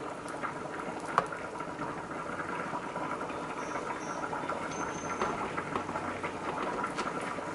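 Metal tongs lifting wet, marinated chicken wings out of a plastic bowl of marinade: soft wet handling noise with a few light clicks, one about a second in and another near the end, over a steady background hum.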